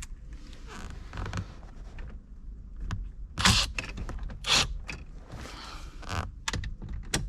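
Hand tool tightening the shifter's Torx mounting screws: creaking and scraping with a few sharp, loud clicks around the middle.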